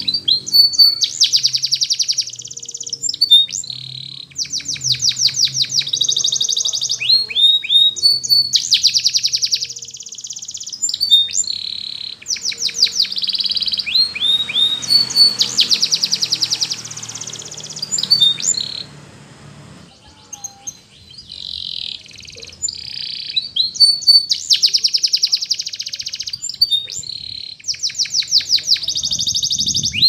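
Domestic canary singing: long phrases of fast trills and rolled notes, broken by a short pause about two-thirds of the way through.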